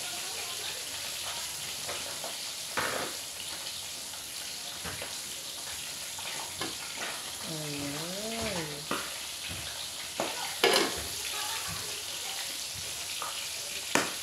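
Steady sizzle and bubbling from food cooking on a gas stove, with a pot of fish sinigang boiling on the front burner. A metal pot lid clanks a few times as it is lifted off and set back. A short wavering pitched sound comes in midway.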